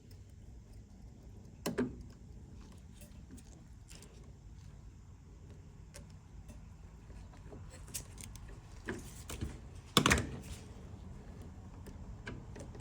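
Quiet small clicks and handling noise of metal parts as a spade connector is spread with a flat-blade screwdriver and pushed onto a microwave door interlock switch terminal. There are two sharper clicks, one about two seconds in and the loudest near ten seconds in.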